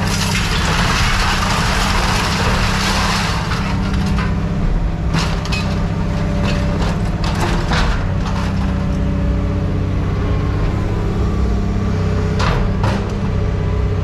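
Guillotine scrap shear running with a steady low hum. A loud rush of metal-on-metal noise fills the first few seconds, and a few sharp clanks of metal come later.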